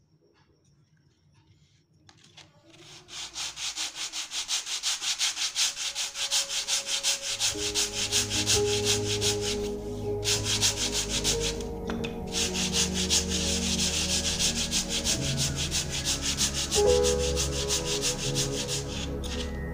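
A block of wood rubbed by hand back and forth on a round sandpaper disc: quick, even, scratchy sanding strokes that start a couple of seconds in and stop briefly a few times.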